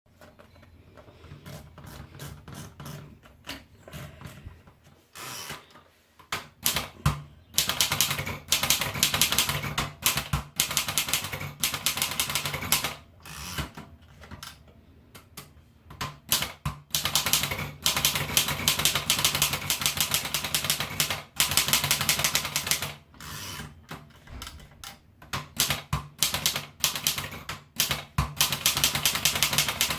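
Erika Model 5 manual portable typewriter being typed on: fast runs of key strikes lasting several seconds, broken by short pauses and scattered single strokes.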